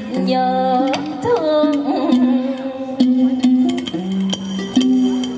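Vietnamese ca Huế chamber ensemble playing: plucked lute notes and a wavering, sliding melodic line over sharp percussion clicks.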